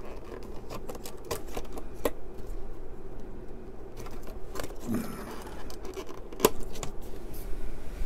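Small irregular clicks and scrapes of hands working the connectors and jumpers at the back of an IDE CD-ROM drive, over a steady low hum.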